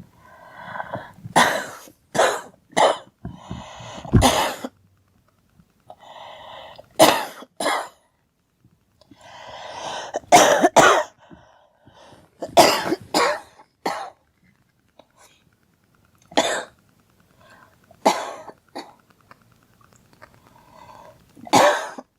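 A girl coughing again and again in short bouts of one to three sharp coughs, with pauses between the bouts.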